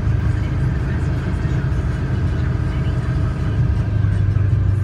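Vehicle engine and road noise heard while driving: a steady low drone.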